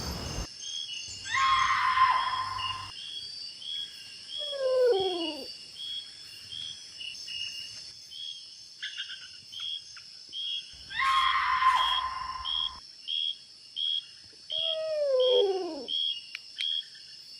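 Two different unidentified animal calls in the night, each heard twice, over a steady chorus of crickets: a noisy call about two seconds long with a steady tone running through it, and a shorter call about a second long that slides steeply down in pitch.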